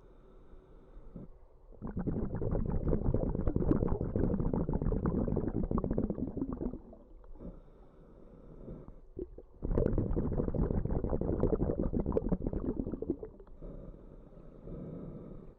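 Scuba diver breathing underwater through a regulator: two long bubbling exhalations, starting about two seconds and ten seconds in, with quieter inhalations between them.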